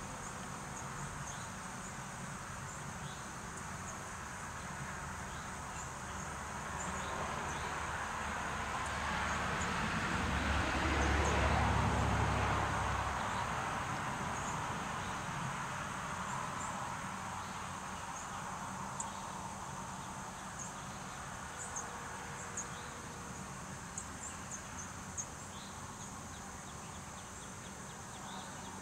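Steady, high-pitched chorus of insects such as crickets. About a third of the way in, a broad rushing sound with a low rumble swells up for several seconds and fades away again.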